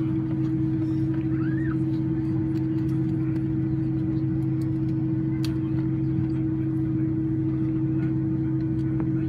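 Steady engine and air hum inside the cabin of a Boeing 767-300ER taxiing on the ground, a deep even drone with two held tones.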